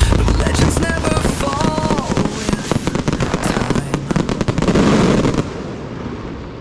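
Firecrackers and fireworks going off in a dense, rapid crackle that dies down about five and a half seconds in.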